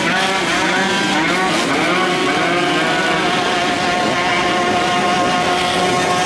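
Several two-stroke motorcycle engines being revved together, their overlapping pitches rising and falling; in the second half one engine holds a steady high rev over the others.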